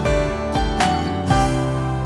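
Background music: soft instrumental with plucked, guitar-like notes over sustained tones.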